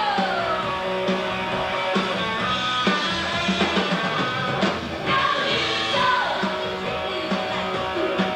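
Live rock band playing, with a woman singing lead over drums and band.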